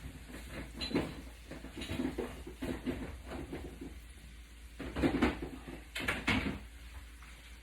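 Kitchen clatter: irregular knocks, clinks and scrapes of utensils, pans and cupboard items being handled, loudest in two knocks about five and six seconds in.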